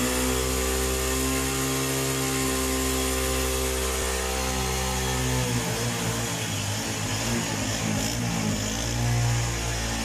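New Honda CD 70's 70cc single-cylinder four-stroke engine running steadily for about five seconds; then its pitch wavers and dips for a few seconds before it settles again near the end.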